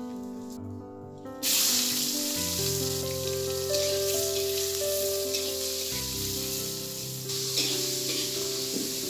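Chopped tomatoes and chillies sizzling in hot oil in a wok. The sizzle starts suddenly about a second and a half in and then holds steady, over soft background keyboard music.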